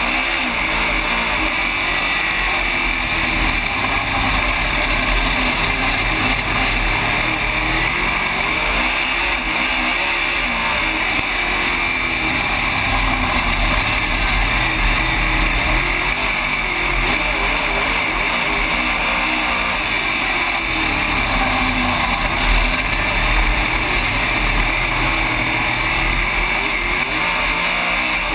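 Dirt-track race car engine at racing speed, heard from inside the cockpit, its pitch rising and falling over and over as the car runs laps, under a constant rush of wind and track noise.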